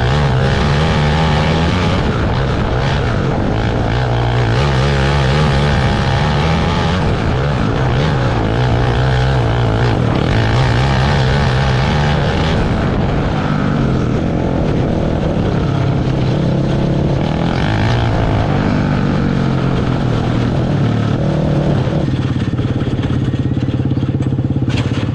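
Open 500 outlaw racing kart engine at full race pace, its revs rising and falling over and over as the kart goes around a dirt oval. The engine backs off in the last few seconds.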